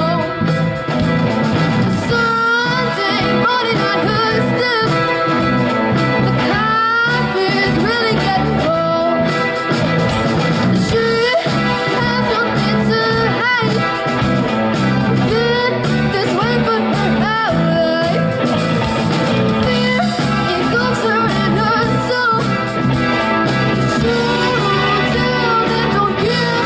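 Live rock band playing a song: a lead vocal sung into a microphone over electric guitar and keyboard.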